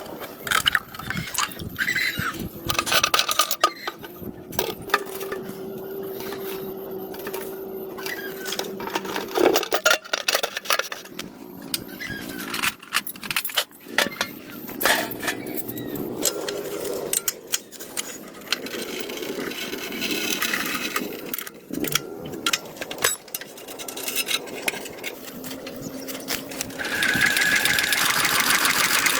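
A run of car-repair workshop tool noises. A small motor hums steadily for about five seconds, many clicks and knocks of metal parts being handled are heard throughout, and a louder, higher-pitched tool starts near the end.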